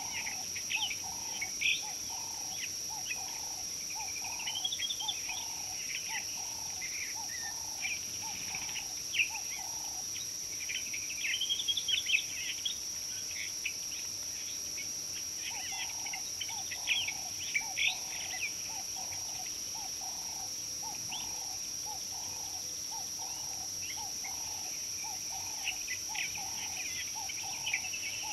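Outdoor savanna ambience: several wild birds chirping and trilling over a steady high-pitched insect drone. A low, soft note repeats a little under twice a second for much of the time, pausing for several seconds near the middle.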